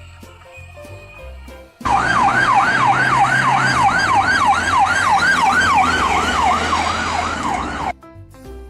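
Emergency-vehicle siren wailing in fast up-and-down sweeps, nearly three a second, cutting in about two seconds in and stopping abruptly about six seconds later. Light background music plays before and after it.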